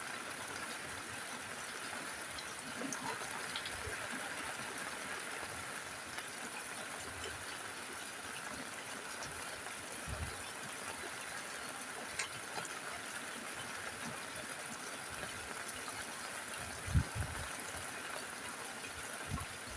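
Steady rain falling on a rooftop, an even hiss with a few short low thuds about halfway through, twice more later on and once near the end.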